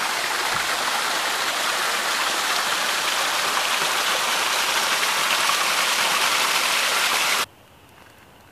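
Small waterfall splashing and rushing over sandstone ledges, running full after several days of heavy rain. The rushing is steady, then cuts off suddenly about a second before the end.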